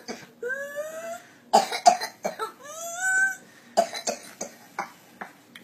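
Whooping cough (pertussis) coughing fit: runs of short, sharp coughs broken by two long, rising, high-pitched whooping breaths in, about half a second in and again about three seconds in.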